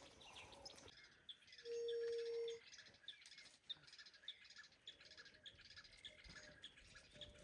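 Faint birds chirping, a short high chirp repeated a few times a second. About two seconds in, a steady low whistle-like tone lasts about a second; it is the loudest sound.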